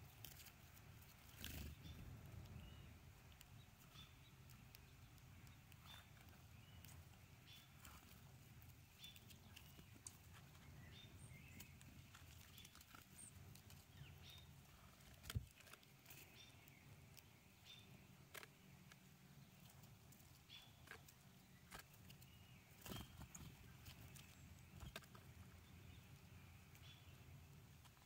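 Near silence with faint, short bird chips now and then and a few soft clicks, one sharper click about halfway.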